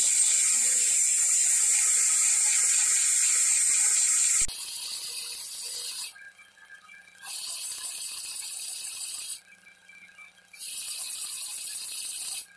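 Wire wheel on a bench grinder scrubbing rust off a steel part of an old adjustable wrench: a steady, loud hiss. The hiss stops for about a second twice, about six and nine seconds in, as the part comes off the wheel, leaving only a faint hum, then starts again.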